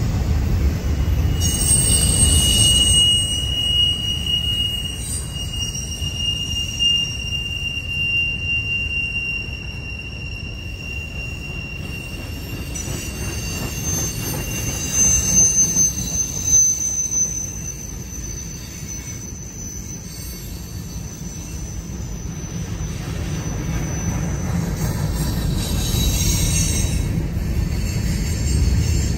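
Freight cars (boxcars, tank cars and covered hoppers) rolling past on steel rails with a steady low rumble of wheels. Thin, high-pitched wheel squeal holds for several seconds from about a second and a half in, then a higher squeal through the middle.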